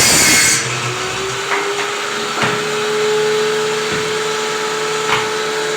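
Electric power saw finishing a cut through plywood: a brief loud hiss of the blade cutting, then the motor running free with a steady whine that picks up slightly as the load comes off, with a few light clicks.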